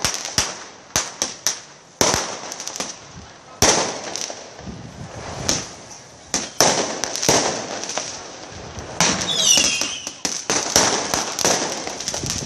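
Firecrackers and fireworks going off in sharp, irregular bangs, some in quick bursts of several, with a brief high whistle about nine seconds in.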